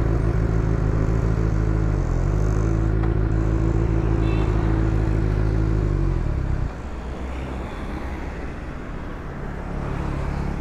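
Benelli 600GT's inline-four engine running steadily as the motorcycle rides along, with a brief dip about two seconds in. About two-thirds of the way through, the engine note drops off sharply, leaving a quieter low rumble.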